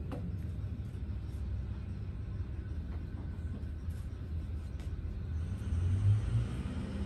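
A steady low rumble, swelling slightly about six seconds in, with a few faint clicks.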